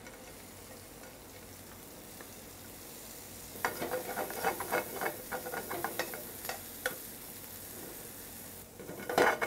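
Sliced onions frying in butter in a frying pan, a soft sizzle, stirred with tongs from about three and a half seconds in: a run of quick clicks and scrapes against the pan, with a louder clatter near the end.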